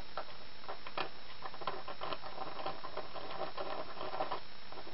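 Light, irregular scratching and small ticks as a replacement steel band for a Roto window corner drive is marked out by hand, the marking tool and band shifting against the metal part.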